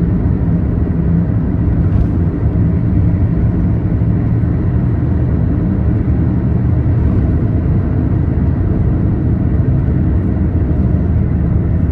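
Steady low road rumble inside a taxi's cabin travelling at highway speed, with a faint low drone running under it.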